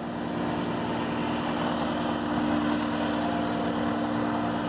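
Caterpillar 242D skid steer's diesel engine idling steadily, an even, unchanging hum.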